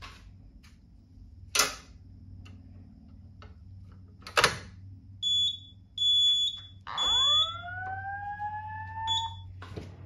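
A sharp click as the Simplex pull station is pulled, then two short high beeps, and a fire alarm speaker begins a rising whoop tone, the start of a Simplex voice evacuation message.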